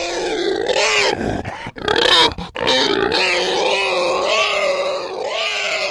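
Baby Bumpy dinosaur toy playing its recorded baby-dinosaur vocal sound effects through its speaker: pitched, wavering calls with two short breaks partway through.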